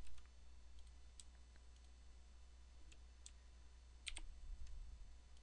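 Computer mouse clicks: a few scattered single clicks and a close pair about four seconds in, over a low steady hum.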